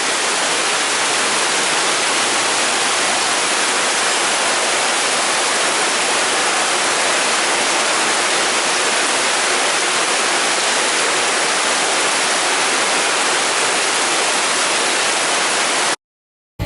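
Heavy tropical downpour: a steady, loud hiss of rain, which cuts off suddenly about a second before the end.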